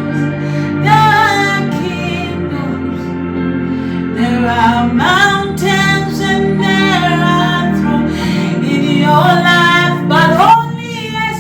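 Christian worship music: a woman singing long notes that swoop up in pitch, over steady sustained accompaniment chords.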